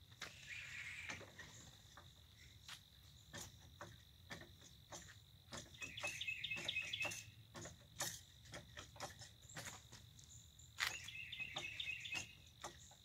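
Hydraulic floor jack being pumped by its long handle under load, giving a string of faint, irregular clicks and knocks.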